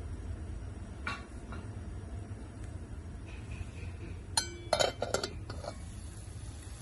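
Metal kitchenware clinking: one light knock about a second in, then a quick run of sharp, ringing clinks around the middle, over a steady low hum.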